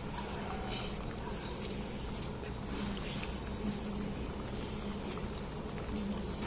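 A small pot of water boiling steadily after rice has been added, bubbling with scattered faint pops.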